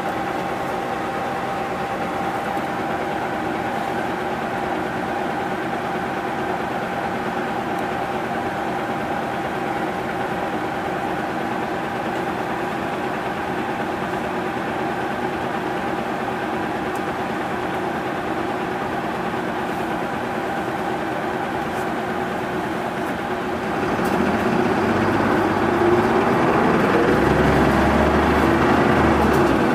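Mitsubishi Fuso 2PG-MP38FK city bus's diesel engine idling steadily, heard from inside the bus. About 24 seconds in the engine revs up and gets louder, rising in pitch as the bus pulls away.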